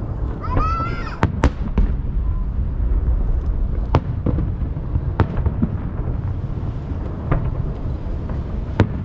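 Aerial fireworks shells bursting: sharp bangs every second or two over a continuous low rumble of reports echoing off the surrounding hills.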